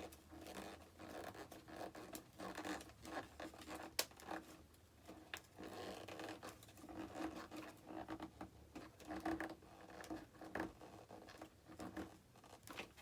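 Small screw being turned in by hand with a screwdriver into the model jet's elevator mount: irregular scratching and creaking of the screw and the handled airframe, with a sharp click about four seconds in.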